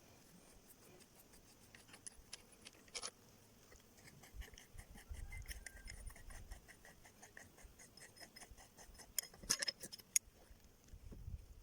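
Light metallic clicks and clinks of hand tools working on a car steering rack as the tie rods are unscrewed, with a louder cluster of sharp clinks about nine to ten seconds in.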